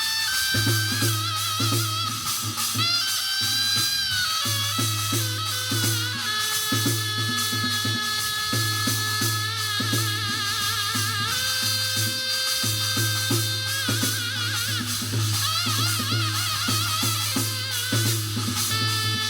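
Korean shamanic ritual (gut) music: a high wind instrument plays a wavering melody with long held notes over steady drum and percussion strokes.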